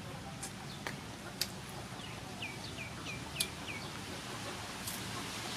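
A bird gives five quick falling chirps in a row about halfway through, over steady outdoor background noise. A few sharp crunches come from chewing crispy battered fried shrimp; two of them are the loudest sounds.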